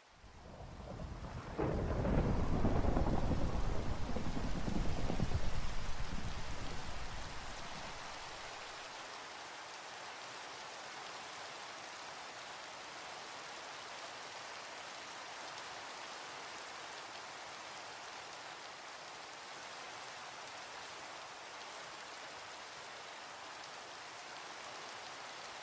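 A long roll of thunder over steady rain. It swells about a second and a half in and dies away by about eight seconds, leaving the even hiss of rainfall.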